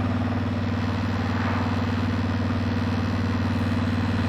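A 2007 Honda VTX 1300S's V-twin engine running steadily, with an even, unchanging note.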